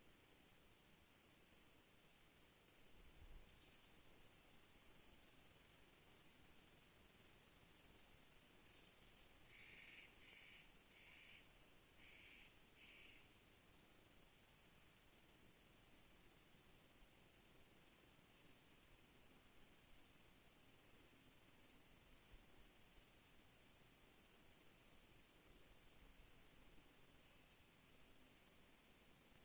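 Evening chorus of crickets: a faint, steady high-pitched trill. About ten seconds in, a short run of five brief, lower notes sounds over it.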